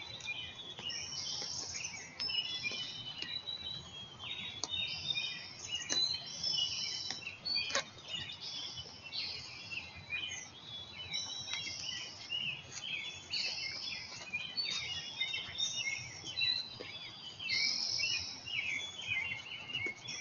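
Several birds singing and chirping at once in a steady, overlapping chorus, with a couple of brief sharp sounds about six and eight seconds in.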